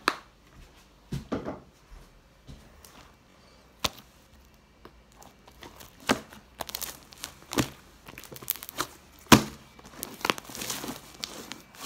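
Hands kneading, stretching and pressing a large mass of slime: irregular sharp wet smacks with crackling and popping in between.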